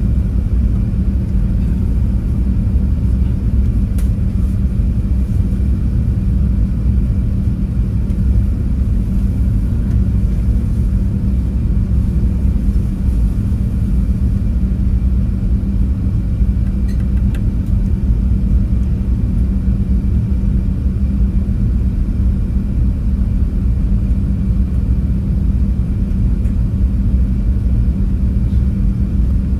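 Steady low rumble of an Airbus A380's engines and rushing air, heard inside the upper-deck cabin during the climb after takeoff, with a steady hum under it.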